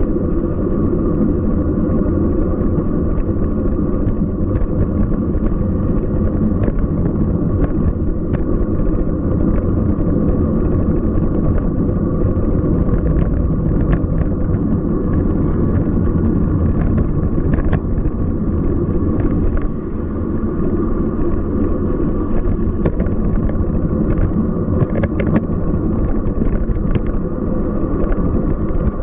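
Steady low rumble of a Scott Speedster CX 20 bicycle rolling over city streets, with frequent small rattles and clicks from the bike and mount as it hits bumps.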